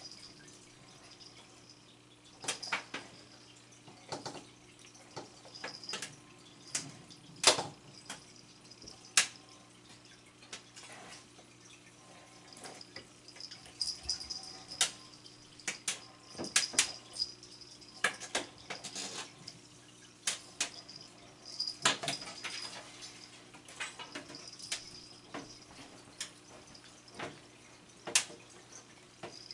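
Irregular light taps and clicks of cats batting and chasing a small toy across a tile kitchen floor, the toy knocking against hard surfaces, over a steady low hum.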